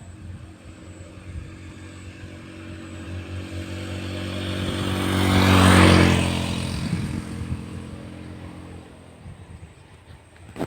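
A motor vehicle passing by, its engine hum and road noise growing louder for about six seconds, peaking a little past halfway, then fading away.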